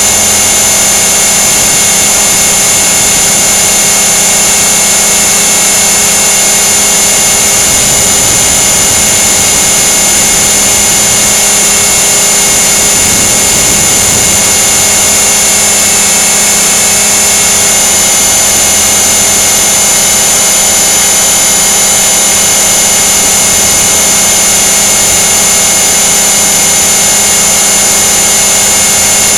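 Radio-controlled T-Rex 500 helicopter running in flight, its motor and rotor heard close up through the onboard camera's microphone as a loud, steady high-pitched whine over a rushing hiss, with only slight shifts in pitch.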